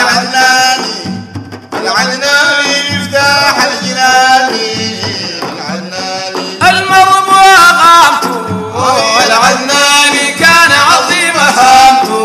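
Sudanese Sufi praise song (madeeh): voices singing a melody over a drum beat.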